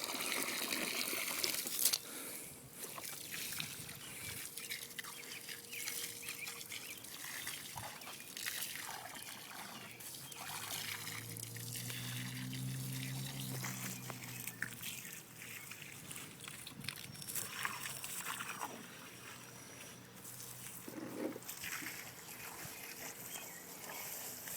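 Water from a garden hose trickling and splashing into a flooded sandbox, louder for the first couple of seconds and then quieter, with small scattered splashes. A low droning hum swells and fades about halfway through.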